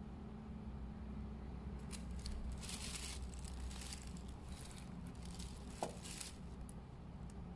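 Rustling and scraping as a small fabric wallet is set down and moved about in a tissue-lined cardboard gift box, in a string of short bursts, with one sharp click a little before the end.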